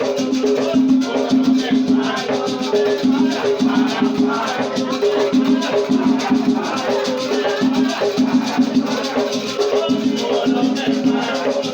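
Batuque ritual music: drums and shaker rattles keeping a fast, steady rhythm, with voices chanting over it.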